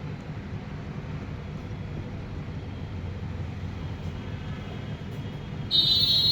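Steady low rumble of street traffic. Near the end a loud, shrill, high-pitched tone cuts in sharply.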